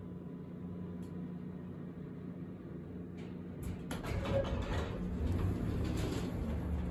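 Elevator doors sliding open about four seconds in, over a steady low hum inside the elevator car.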